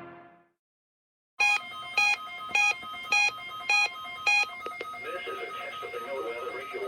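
Music fades out, and after about a second of silence an electronic beeper sounds six short, evenly spaced beeps, a little over half a second apart. These are typical of a weather alert radio sounding for a Required Weekly Test.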